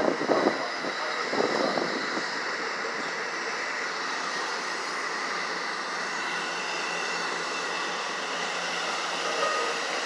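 NJ Transit bi-level commuter train rolling past on the near track: a steady rumble and rush of wheels and cars, with a faint high whine. A couple of brief louder swells come in the first two seconds.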